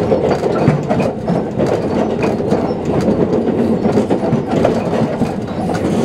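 JR Kyushu 787 series electric train running at speed, heard from inside the passenger cabin: steady wheel-on-rail running noise with a continual clatter.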